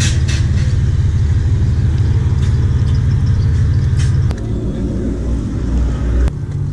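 Lowered pickup trucks driving slowly past, their engines and exhausts making a loud low rumble. The rumble drops suddenly about four seconds in and changes again near the end.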